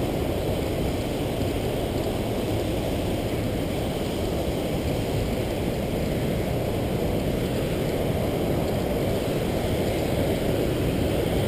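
Waterfall's steady rushing roar, an even low rumble with no breaks.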